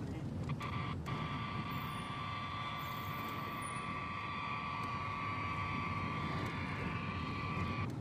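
Two-way radio channel hiss with a steady high-pitched tone over a low rumbling drone, between voice transmissions. The hiss drops out briefly in the first second and again near the end.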